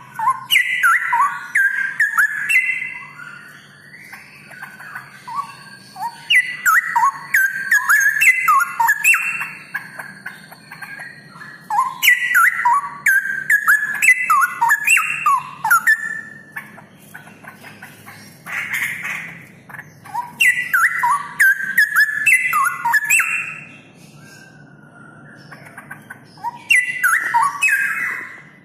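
Straw-headed bulbul (cucak rowo) singing loud, high whistled song phrases of quick gliding notes, in bursts of a few seconds with short pauses between.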